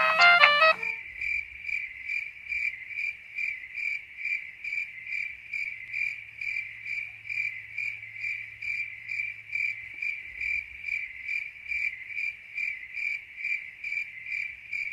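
Cricket chirping at an even pulse of about two to three chirps a second, the stock sound used to mark an awkward silence. A tune cuts off about a second in.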